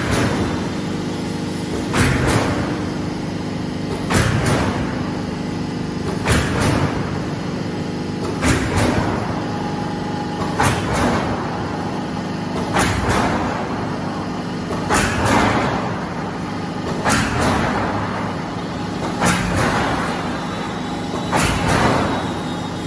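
A silo corrugated sheet roll forming machine running with a steady motor hum. A sharp clank comes about every two seconds, each trailing off in a hissing rush, eleven in all.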